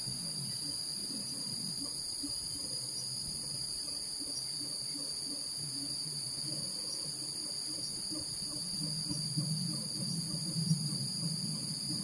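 Steady high-pitched insect drone, like a forest cicada chorus, holding two unchanging tones, with a faint low pulsing beneath it that grows a little louder near the end.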